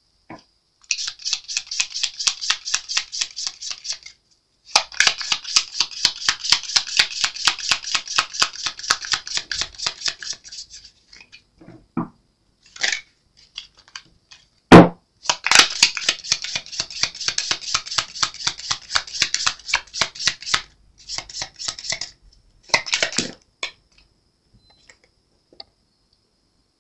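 A deck of oracle cards being shuffled by hand: long runs of rapid clicking as the cards slip over one another, broken by short pauses, with one sharp knock about fifteen seconds in.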